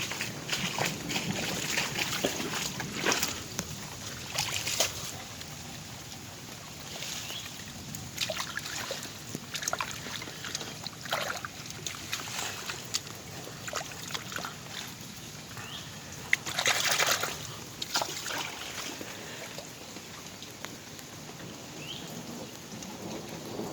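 Water sloshing and trickling, with irregular splashes and a louder cluster of splashes about two-thirds of the way through.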